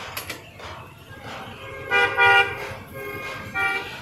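Vehicle horn honking twice in passing traffic: a longer toot about two seconds in and a shorter one near the end, over street noise.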